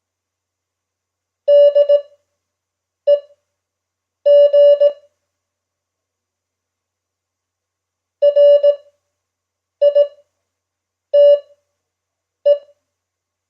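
Morse code practice tone, a single steady beep keyed on and off into short groups of dots and dashes, with long silent gaps between characters, as in 5 words-per-minute Farnsworth-spaced code.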